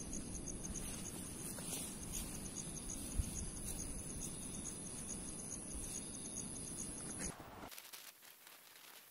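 Night insects calling: a steady high-pitched trill with an evenly pulsing chirp just below it, over a low rushing noise. The sound cuts off sharply about seven seconds in, leaving a much quieter background.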